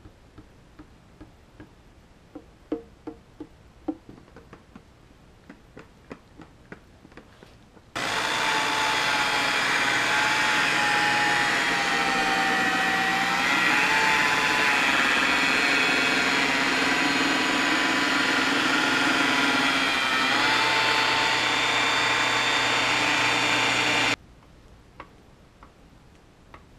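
Electric high-speed rotary buffer with a foam pad running for about sixteen seconds, buffing second-stage compound into a boat hull's paint. It starts about eight seconds in, its motor whine wavers and dips in pitch a few times, and it cuts off suddenly. Before it there are only faint small clicks and handling.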